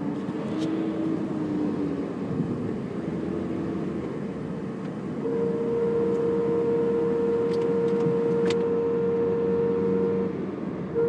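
Engine running with a steady humming tone from the 1998 Honda Civic GX's high-pressure CNG fuel regulator (IMPCO HPR3600), a noise its regulator membranes can make as they age. The tone comes in strongly about five seconds in and cuts off after about five seconds; a lower wavering tone is heard near the start.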